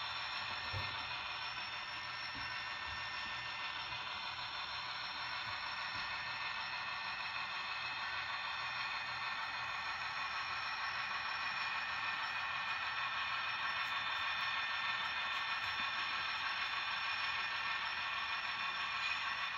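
Model diesel locomotive running slowly along the layout track: a steady hum made of many high, fixed tones with no deep bass, growing slightly louder toward the end.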